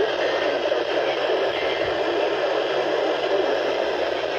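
Steady radio static hiss from a weather radio receiver during dead air between broadcasts, an even rushing noise with no voice or tone in it.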